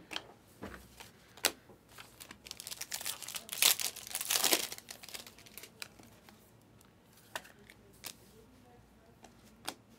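A foil Panini Select trading-card pack being torn open and crinkled, with a dense burst of crackling about three to five seconds in. Light clicks and snaps of cards being handled come before and after.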